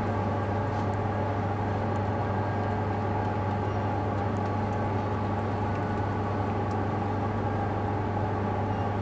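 Steady low mechanical hum of a running motor or fan, with a strong low tone that holds without change.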